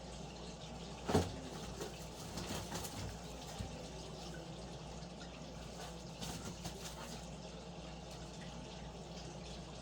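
Handling noise while unpacking a boxed fire alarm control panel: one sharp knock about a second in, then a few fainter knocks and rustles, over a steady low hum.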